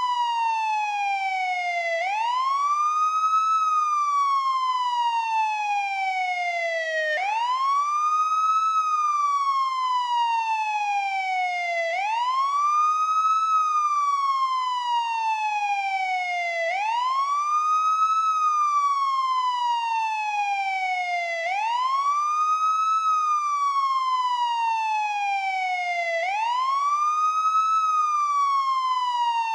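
Police siren sounding the wail: the tone climbs quickly, then falls slowly and steadily, and repeats about every five seconds.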